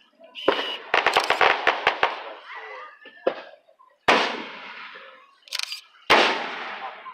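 Aerial fireworks shells bursting. A quick string of about eight sharp cracks comes in the first two seconds, then a single bang, then two loud booms about two seconds apart, each trailing off slowly.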